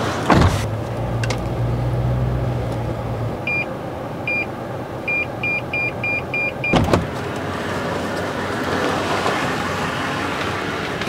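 Toyota Tundra pickup reversing: a low engine hum for the first few seconds, then its parking sensor beeping, two spaced beeps followed by six quicker ones at about three a second as the truck closes on an obstacle behind it. A sharp thump follows the last beep.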